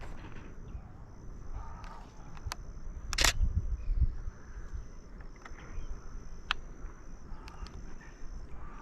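Separate shutter clicks of a Canon Rebel T7i DSLR, single shots a second or so apart, with one louder, longer click about three seconds in. A steady high insect buzz runs underneath, breaking off and resuming.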